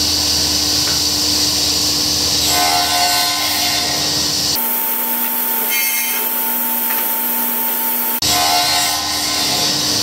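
Hammer sliding table saw running steadily, its blade cutting into a hardwood block pushed across it on a plywood jig. The sound changes abruptly a little before halfway, losing its low hum, and changes back near the end.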